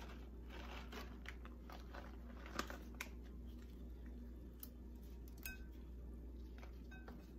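Faint, scattered clicks and rustles of gloved hands handling a plastic bag of dried cranberries and sprinkling them onto shredded cabbage slaw, over a steady low hum.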